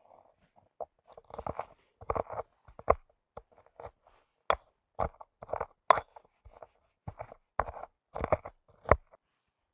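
A series of crisp, crackly crunches at an irregular pace, roughly one every half second, with a few sharper clicks among them.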